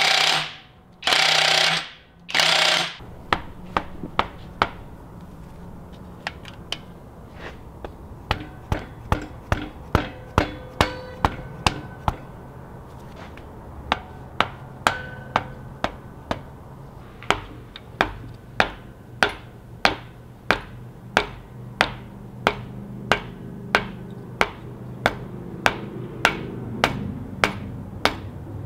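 Hammer tapping on a long steel rod to drive the rocker shaft into a BMW M20 cylinder head: a long series of sharp metal taps, slow and sparse at first, then steady at about two a second. A loud hiss comes just before the tapping starts.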